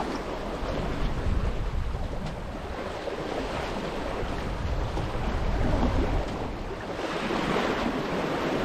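Sailboat under sail through open-ocean waves: water rushing and splashing past the hull, swelling and easing with the waves, with wind blowing across the microphone.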